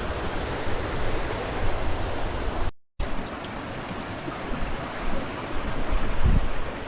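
Steady rushing of spring-fed waterfalls, cut off by a brief silent gap about three seconds in, then continuing with low gusty rumbles near the end.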